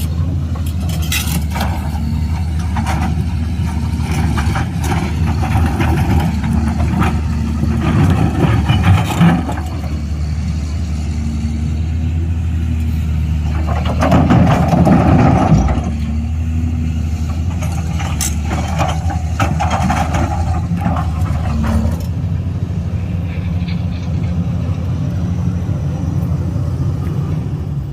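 Excavator's diesel engine running steadily under load, with scattered clanks and a louder, busier stretch about halfway through as it works.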